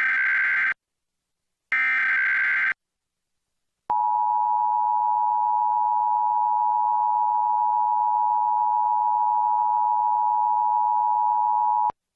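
Emergency Alert System SAME header: bursts of modem-like data tones carrying the National Periodic Test alert code. One burst ends just under a second in and another sounds about a second later. At about four seconds the EAS two-tone attention signal starts, a steady pair of pitches held for about eight seconds, then cuts off abruptly.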